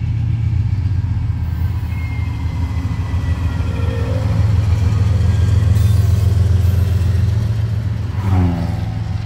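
Norfolk Southern diesel freight locomotives passing, with a deep steady engine rumble that grows louder toward the middle and eases near the end.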